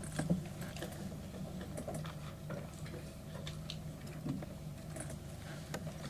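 Steady low hum with scattered light clicks and taps, several a second and irregular.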